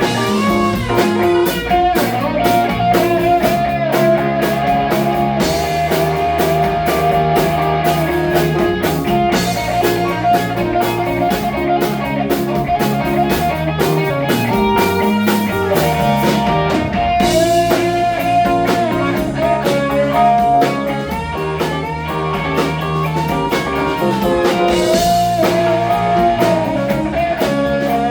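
Live band playing a blues-rock number, with guitar and drum kit; the lead line has bending notes.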